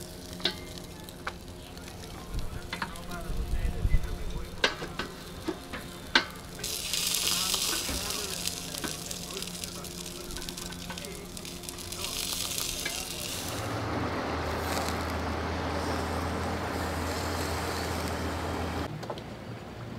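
Steak and zucchini sizzling on the grate of a Magma marine gas grill, with sharp clicks as metal tongs knock on the grate while the meat is turned. About two-thirds in, a steadier rushing noise with a low hum takes over, as from the gas burner's flame under the open grill.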